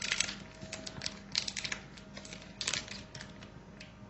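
Clusters of quick, light clicks and clatter from kitchenware being handled as a frying pan is set on the stove, over a faint steady hum.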